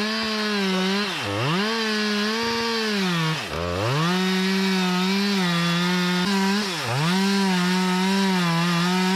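Two-stroke chainsaw running at high revs, its engine note dropping sharply three times and picking straight back up.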